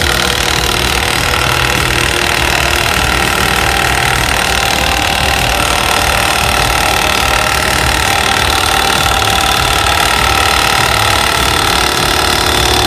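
Milwaukee M18 2767 cordless impact wrench hammering without a break, at a steady level, on the drive bolt of an exhaust pipe stretcher. The stretcher is working against 16-gauge stainless steel pipe that resists expanding.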